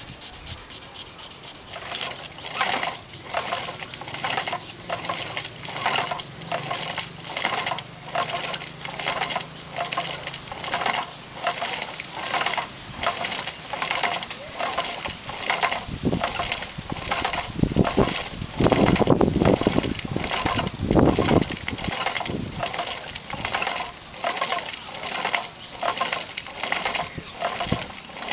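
Rhythmic rasping of abrasive paper pressed by hand against a lacquered vessel turning on a hand-driven wooden lathe, about two strokes a second. A deeper rumble joins for several seconds past the middle.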